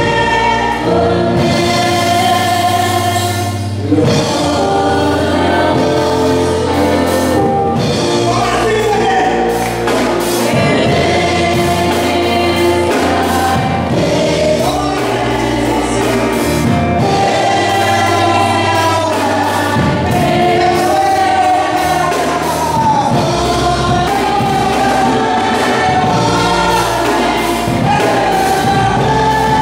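Gospel music: a male lead singer sings into a microphone, with backing vocals and a steady instrumental accompaniment.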